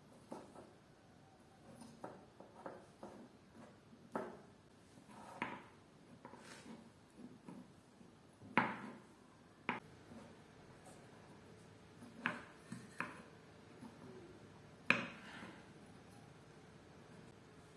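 Scattered light clicks and taps of small tools and parts being handled while a soldering iron is repaired, with the loudest knocks about halfway through and again later on.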